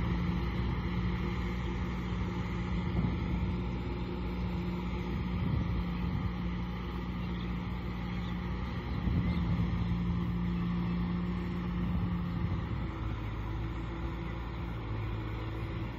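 Kubota M6040 SU tractor's diesel engine running steadily under load as it cultivates flooded paddy mud, its pitch shifting slightly about halfway through.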